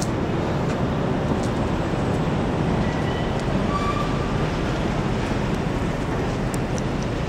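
Steady city road traffic noise: a continuous rumble of passing vehicles with no distinct events.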